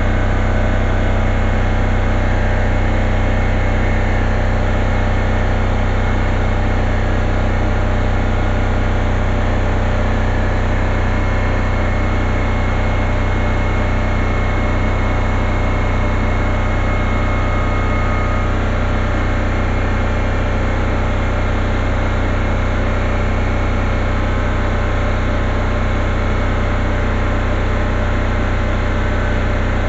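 A steady, unchanging mechanical hum at a constant pitch, strongest in the low bass.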